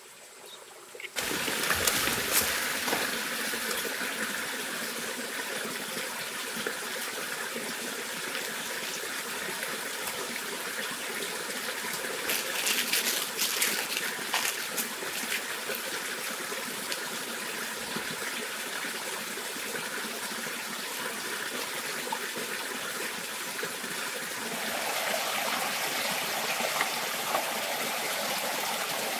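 Small forest stream trickling and splashing steadily, starting abruptly about a second in and growing louder near the end by a little waterfall. A few crackles of large leaves being handled come in the middle.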